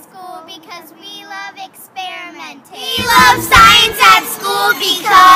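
Young children's voices together, much louder from about three seconds in, with a low rumble under the loudest part.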